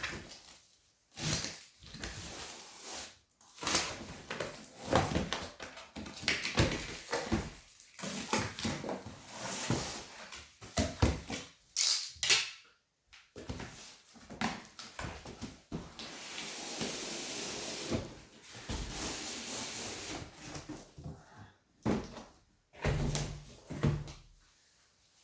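Packaging being handled during an unboxing: irregular rustling, scraping and knocking of cardboard and wrapping, with a longer rustle partway through and a short low-pitched sound near the end.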